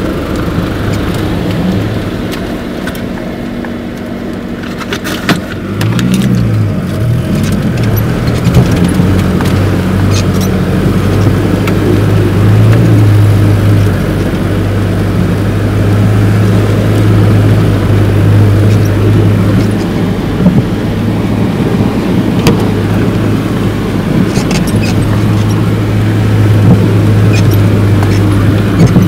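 Off-road car's engine running under load while driving over rough, waterlogged ground, heard from inside the cabin. The engine note rises and falls around six seconds in, then holds fairly steady, with occasional knocks from the bumpy ride.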